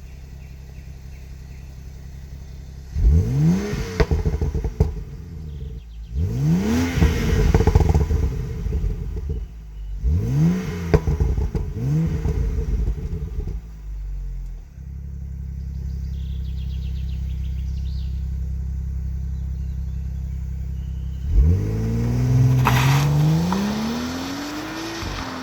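BMW 335i xDrive's turbocharged 3.0-litre straight-six on its stock exhaust, idling and then revved sharply four times, each rev rising and dropping back quickly. It settles to a steady idle, and about 21 seconds in it launches hard, the engine note climbing through a gear change before easing off near the end.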